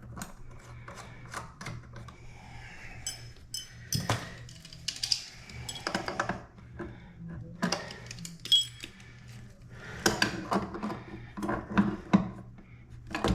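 Irregular clicks, taps and clatter of small plastic and metal parts being handled during faucet cartridge work, with short rustling spells, over a faint steady low hum.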